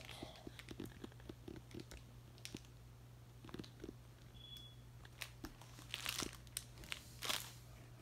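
Faint, scattered clicks and rustling of a hand handling a large silicone pop-it fidget, a quick run of small clicks at the start and a few louder rustles near the end.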